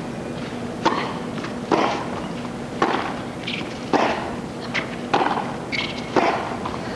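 Tennis ball struck back and forth by rackets in a hard-court rally: six sharp hits about a second apart, with fainter ball bounces between them.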